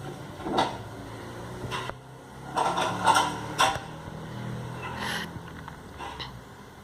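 Slime being mixed and handled, heard as a few irregular bursts of noise, the loudest cluster about three seconds in, over a steady low hum.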